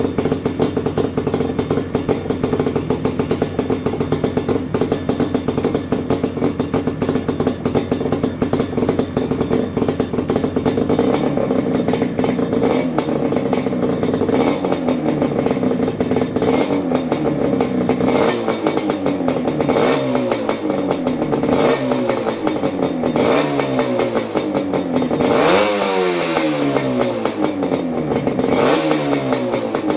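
Yamaha RZ250's two-stroke parallel-twin engine running through a Sugaya collector chamber exhaust with the silencer fitted. It idles steadily, then from about a third of the way in it is blipped again and again, each rev rising and falling back to idle, with one bigger rev near the end.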